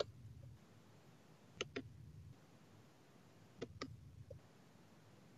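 Faint clicks of a computer mouse: one at the start, then two close pairs about two seconds apart and a last faint click.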